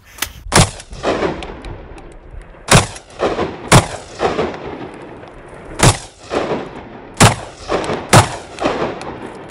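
Six loud gunshots at uneven intervals, each followed by echoes rolling back off the surrounding hillsides.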